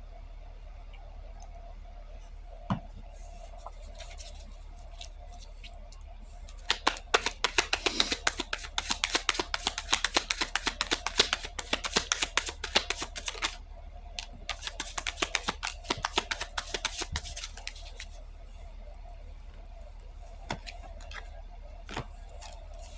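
A deck of cards being shuffled by hand: two bouts of rapid clicking slaps, one starting about seven seconds in and lasting some six seconds, a second from about fourteen seconds lasting some three seconds. A faint steady hum runs underneath.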